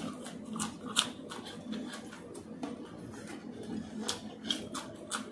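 Close-up chewing and crunching as raw green chillies are bitten and eaten, heard as irregular short crisp clicks and snaps with one sharper crunch about a second in.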